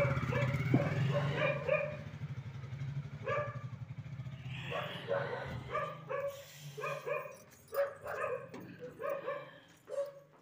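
A dog barks again and again in quick runs of short barks. Under the barking a motorcycle engine is running, growing fainter after the first couple of seconds.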